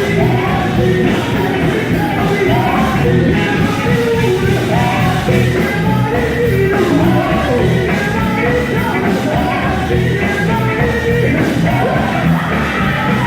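Gospel quartet performing live: lead and harmony voices singing over a loud band accompaniment with a steady heavy low end.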